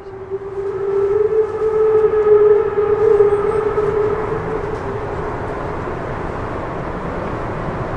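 Steam locomotive whistle from a class 01 express engine, one long steady blast of about five seconds, over the steady rumble of the locomotives working uphill; the rumble continues after the whistle stops.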